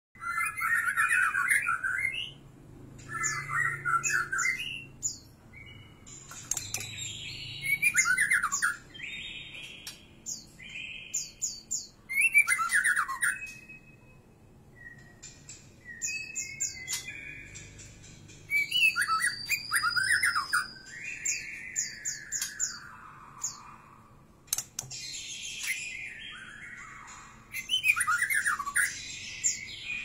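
White-rumped shama singing: varied phrases of rapid chattering notes, sharp high notes and long sliding whistles, in bursts of a second or two with short pauses between them.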